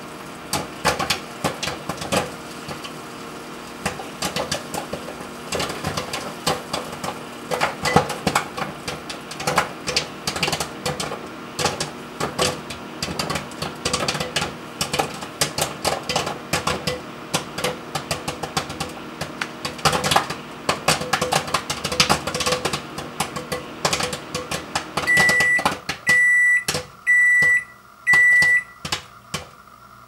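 A bag of butter microwave popcorn popping inside a running microwave oven: many quick, irregular pops over the oven's steady hum. About 25 seconds in, the oven shuts off and beeps four times, about a second apart, to signal that it has finished.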